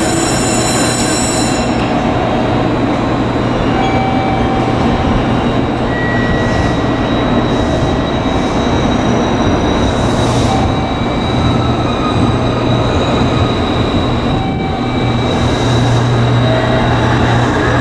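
JR Kyushu 811 series electric train pulling out along a station platform, then, after a cut near the end, a 415 series electric train rolling close past. Steady running noise with faint steady whining tones over it.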